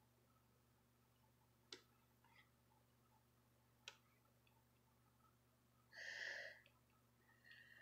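Near silence: room tone, with two faint clicks and a short faint voice about six seconds in.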